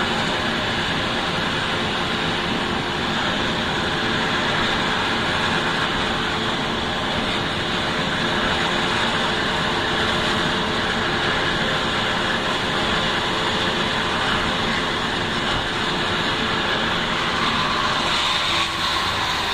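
Landed helicopter's turbine engine running steadily on the ground, a continuous whine.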